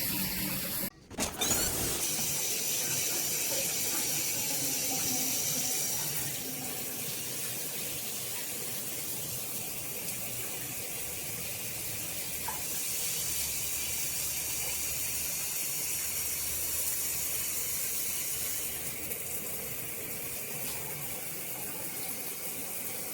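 Water spraying steadily from a dual shower head, a continuous hiss that cuts out briefly about a second in and shifts in tone a few times.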